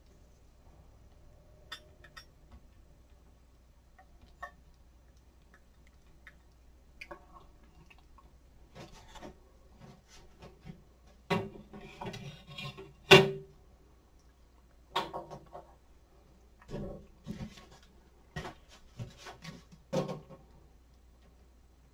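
Kitchen utensils and dishes being handled: scattered knocks and clatters with short stretches of scraping, busiest a little past the middle, where the loudest knock falls.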